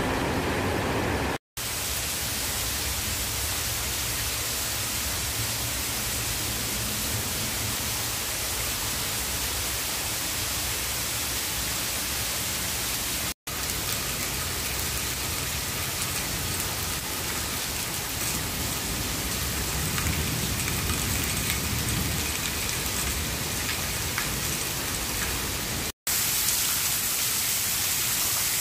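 Heavy rain falling steadily, a dense even hiss of downpour, broken by three brief silent gaps.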